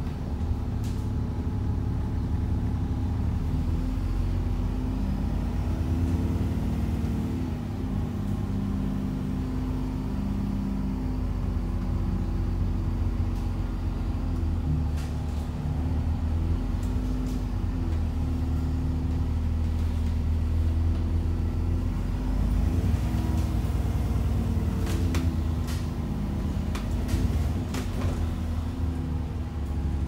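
Alexander Dennis Enviro400 Trident double-decker bus running, heard inside the passenger saloon: a steady low engine drone whose note rises and falls several times as it pulls and changes gear, with no 'hoovering' whine. A few clicks and rattles come in the second half.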